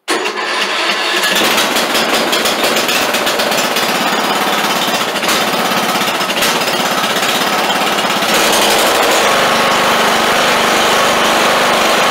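Briggs & Stratton Intek 20-horsepower engine on an MTD riding mower, started cold after sitting, running loudly and kept going with starting fluid sprayed into the intake. It gets louder about eight seconds in.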